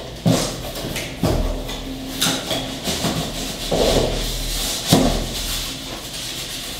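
Cardboard carton and its packing being handled by hand: rubbing and scraping of cardboard and packing material, with a few sharp knocks.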